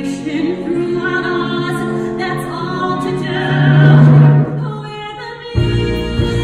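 A woman's solo voice singing held notes over a musical-theatre pit orchestra, recorded from the audience seats. It swells to a loud sustained low note about four seconds in, dips, then a fuller low orchestral chord comes in suddenly near the end.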